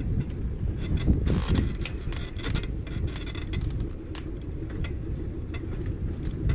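Wind rumbling on the microphone of a handlebar-mounted camera while riding, with frequent small rattles and clicks from bumps in the path.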